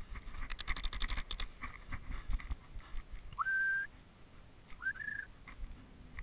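Two short whistles, each sliding up and then holding steady: the first about halfway through, the second about a second later. Before them comes a short patch of crunching footsteps in snow.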